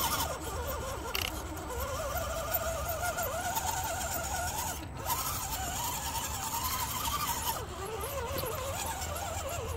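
Axial SCX10 RC crawler's electric motor and geared drivetrain whining as the truck crawls up a steep ramp, the pitch wavering up and down with the throttle and dropping out briefly about halfway through.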